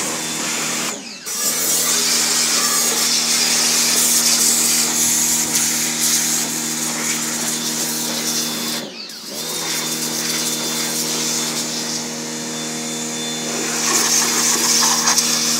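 Pressure washer running: its motor and pump hum steadily under the hiss of the water jet. The motor cuts out briefly twice, about a second in and about nine seconds in, and picks up again each time.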